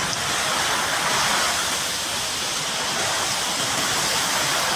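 Steady, loud roar of a severe storm: heavy rain and wind, with no separate hailstone impacts standing out.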